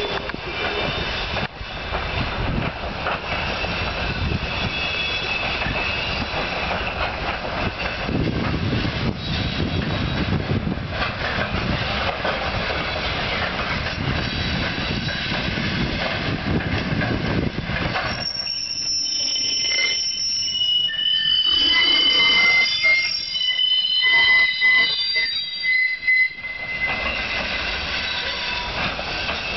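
Freight wagons rolling through a hump yard's car retarders, their wheels rumbling and clattering on the rails. About two-thirds of the way through, the retarders grip the wheels and set up a loud, shrill, high-pitched squeal for several seconds as the cars are braked.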